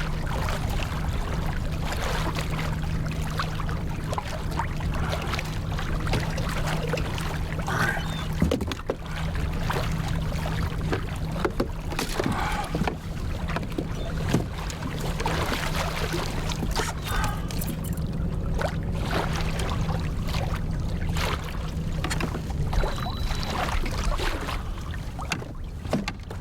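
Water splashing and sloshing around a fishing kayak, with frequent knocks and clicks from handling rods and gear, over a steady low hum that fades out near the end.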